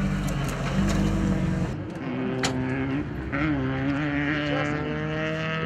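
Off-road race vehicle engine running steadily; about two seconds in the deep rumble drops away, leaving higher, slightly wavering engine tones and a single sharp click.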